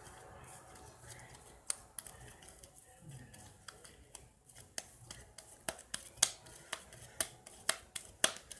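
Slime being worked by hand, giving sharp little clicks and pops. They are sparse at first and then come two or three a second from about halfway through.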